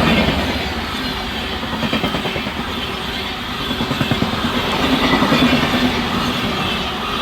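The 12418 Prayagraj Express's passenger coaches running past at speed: a steady rumble with the wheels clattering rapidly over the rail joints, growing louder again about four seconds in.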